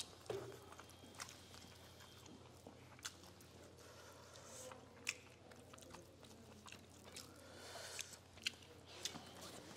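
Faint close-up eating sounds: chewing and mouth noises from two people eating rice and curries by hand, with a few short sharp clicks scattered through.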